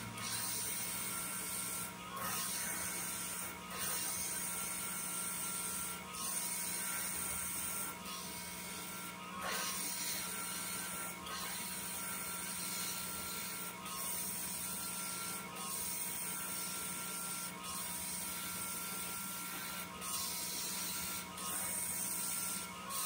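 Small CNC machine running a carving job: a steady mechanical whine and hum, with brief dips every second or two and a higher tone that comes and goes.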